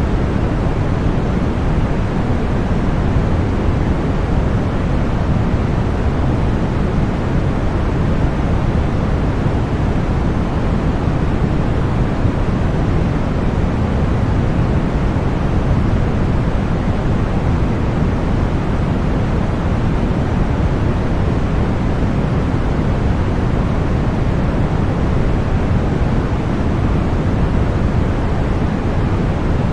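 Continuous generated deep white noise, steady and unchanging, weighted toward the low end and thinning out in the highs.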